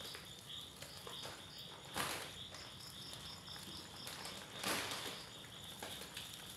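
Crickets chirping steadily in a fast, even pulse, with two brief rustling noises, about two seconds in and again near the five-second mark, as dry glass noodle bundles are laid into the simmering wok.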